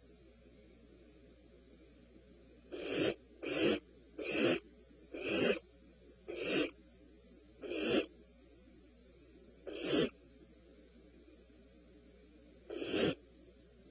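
A bird giving short, raspy calls with no clear pitch, eight of them spaced unevenly about one to three seconds apart.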